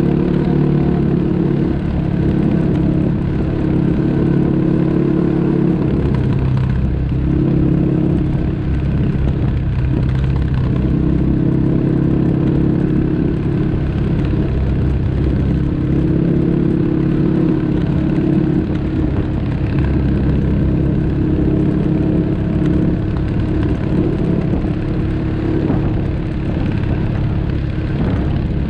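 ATV engine running loud and steady while riding, its pitch shifting up and down several times.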